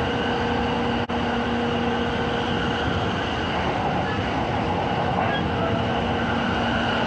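Commuter train running noise heard from inside the carriage: a steady rumble with a low, even hum, briefly cut off about a second in.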